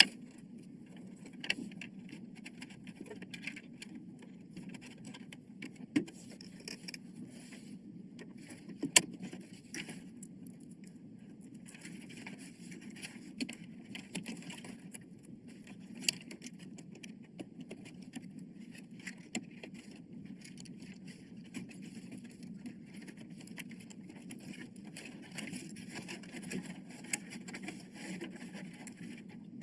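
Scattered sharp clicks and taps of computer parts being handled during a PC assembly, over a steady low hum; one click about nine seconds in is the loudest.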